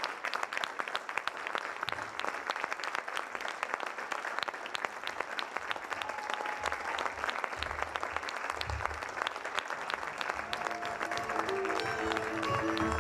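Theatre audience applauding steadily. About ten seconds in, a violin and cello begin playing held notes under the clapping.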